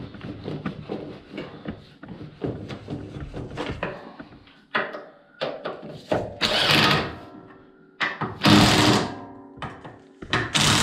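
Hand work on machine parts: a run of light clicks and knocks, then three louder scraping, rustling bursts near the end, as cooling-system parts are handled and fitted back in place.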